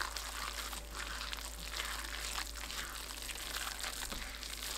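A gloved hand squishing and tossing a wet batter of shredded napa cabbage, mashed tofu, starch, acorn flour and raw eggs in a bowl: soft wet squelching in uneven surges.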